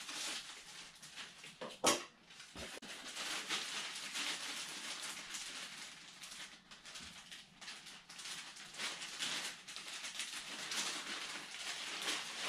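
Clear plastic bag crinkling and rustling as it is opened and worked off a foam model-airplane tail piece, with one sharp snap about two seconds in.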